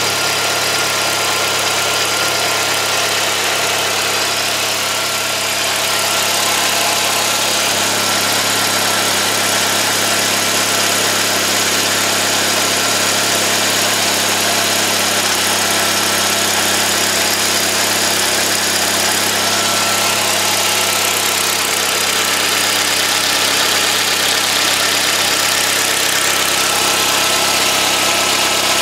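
Turbocharged Nissan Micra engine idling steadily, heard close up in the engine bay while it warms up from a cold start.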